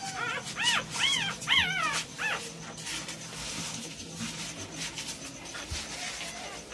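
Newborn American bully puppies squeaking: about five short, high-pitched squeals in the first two and a half seconds, each rising then falling in pitch.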